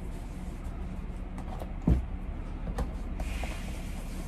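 Handling noise at a shoe-shine bench: a single knock about two seconds in as something is set down, then a few light clicks. Near the end a cloth starts rubbing over the leather of a shoe as dry wiping begins.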